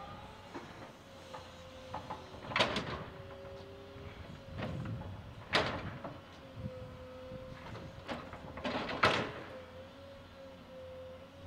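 Komatsu PC200LC excavator's diesel engine and hydraulics running with a steady whine as the machine swings back from the dump truck, broken by three sharp clanks of the bucket and demolition rubble about three seconds apart, the last the loudest.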